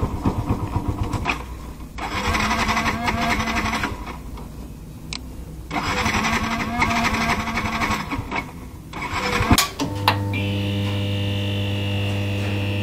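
Motorcycle electric starter cranking the engine in two whirring bursts of about two seconds each, with a pause between, without the engine catching: the engine has died and will not restart. From about ten seconds in, a steady low drone with a thin high tone over it takes over.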